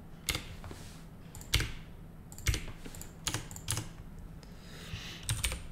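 Computer keyboard being typed on: separate keystrokes at irregular intervals, with a quick cluster near the end.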